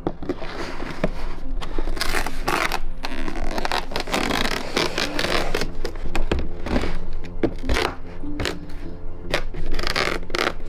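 Cardboard packaging and plastic toy racetrack parts scraping and rustling in irregular bursts as the playset is pulled out of its box, over steady background music.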